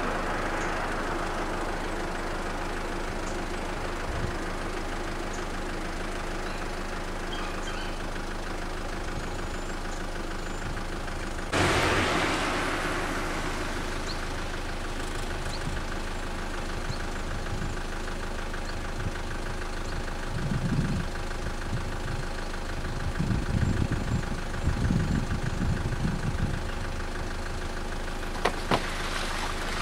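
A motor vehicle engine idling steadily with a low, even hum. About twelve seconds in the background sound jumps louder and hissier, and in the last third there are irregular low thuds and bumps.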